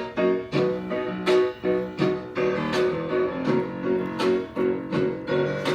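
Instrumental music: piano notes and chords struck in a steady rhythm, about three a second.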